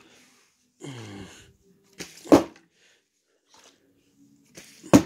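Plastic water bottle thudding down on the floor twice during bottle flips, about two and a half seconds apart, with a short vocal sound falling in pitch about a second in.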